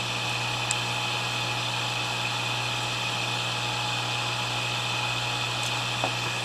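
Steady low hum and hiss of workbench background noise, with a faint tap about a second in and another near the end as the screen's ribbon connector is handled.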